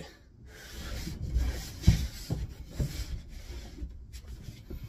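Scuffing and rubbing of a person shifting about on plywood inside a wooden enclosure, with a few light knocks, the loudest about two seconds in.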